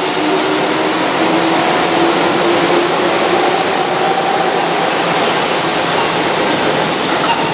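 Keihan electric commuter train running past the platform: a steady rushing noise of the passing cars with a faint hum underneath.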